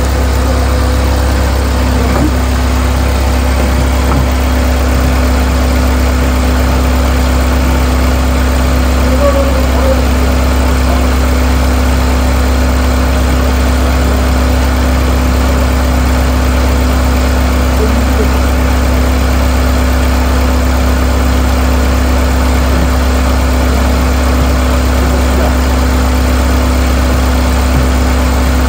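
Bucket truck's engine idling, a loud, steady low drone with a constant hum above it, keeping the aerial lift's boom hydraulics powered.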